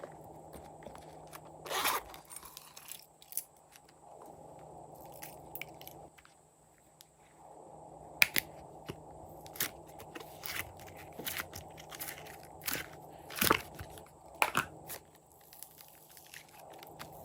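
Glossy slime being worked by hand, giving irregular sticky clicks and pops, a few of them much louder than the rest.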